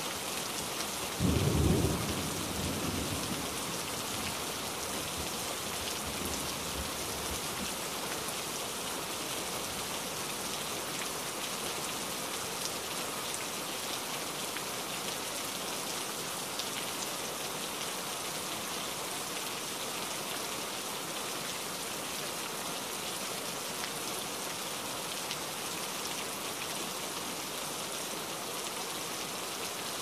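Steady rain falling throughout. About a second in, a sudden low clap of thunder rumbles and fades away over the next two seconds or so.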